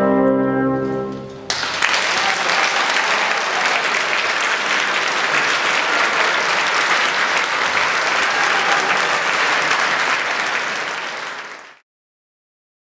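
A military wind band's brass and winds hold a final chord that cuts off about a second and a half in. Audience applause follows at once and is faded out abruptly near the end.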